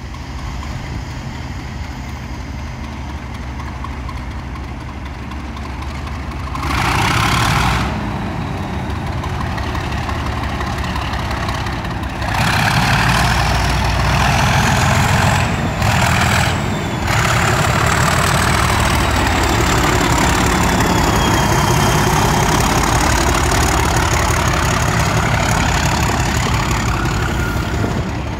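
Class 37 locomotive's English Electric V12 diesel idling, with a short burst of air hiss about seven seconds in. About twelve seconds in the engine opens up and runs loud under power, a high turbocharger whistle drifting in pitch above it, as the locomotive pulls away.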